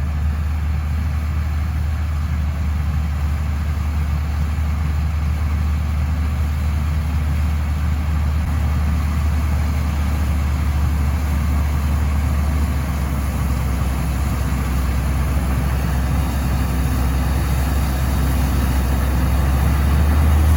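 Vehicle engine idling with a steady low drone that grows slightly louder near the end.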